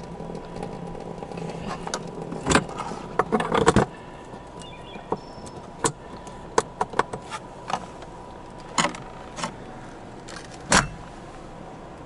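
Brass quick-release hose couplers clicking and clacking as a hose is unsnapped from one fitting and snapped onto another: a cluster of sharp metal clicks a few seconds in, then scattered single clicks.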